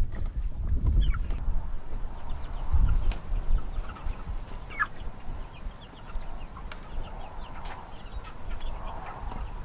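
Three-week-old meat chickens cheeping with many short, high chirps over a heavy, gusting rumble of wind on the microphone.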